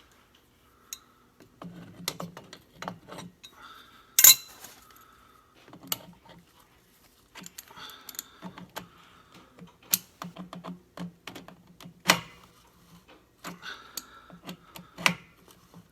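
Irregular metallic clinks and knocks from tools and pipe fittings being handled during plumbing work. The loudest knock comes about four seconds in, with another sharp one near twelve seconds.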